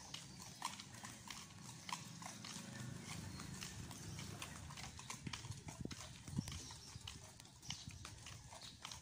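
Footsteps of several people walking on a paved path: an irregular run of light taps and scuffs.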